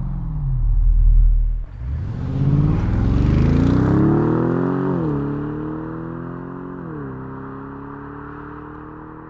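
Bentley engine and exhaust: a deep rumble, then the engine note climbs under hard acceleration. It drops sharply at two upshifts, about five and seven seconds in, and fades as the car pulls away.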